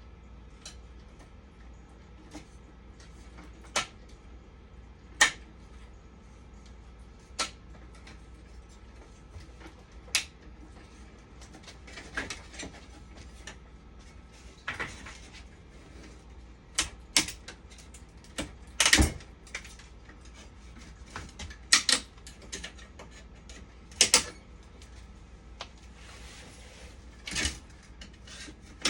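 Irregular clicks and knocks of tools and small parts being handled, a dozen or so sharp ones scattered through, over a low steady hum.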